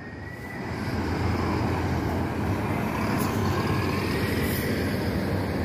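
Intercity coach's diesel engine running as the coach pulls out and drives past, with tyre noise. It is a steady low rumble that builds over the first second and then holds.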